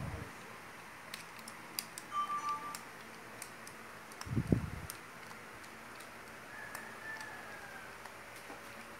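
Small clicks and taps of a long screwdriver being worked inside an electric drill's chuck assembly held in the hand, with a dull knock about four and a half seconds in.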